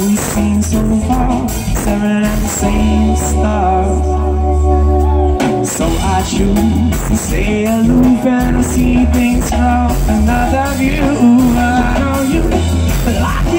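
A live band playing, heard from the crowd in front of the stage, with a voice singing over it. The lineup is drums, electric guitars, bass, saxophone and keyboards.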